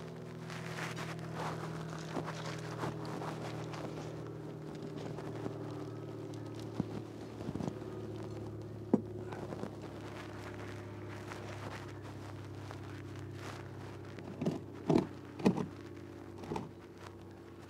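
Scattered footsteps, knocks and scrapes of someone working in a dirt footer trench, with a few louder thumps near the end, over a steady low mechanical hum.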